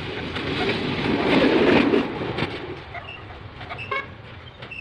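Locomotive running light along the track, its noise swelling to a peak about two seconds in and then falling away, with a brief horn toot about four seconds in.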